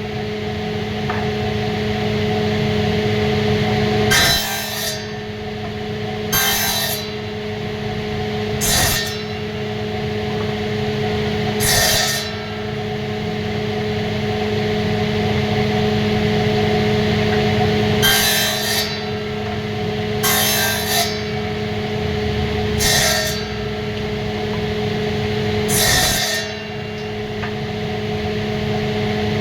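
Wood being worked in a carpentry shop: a steady machine hum runs under about eight short rasping strokes on wood, spaced a few seconds apart.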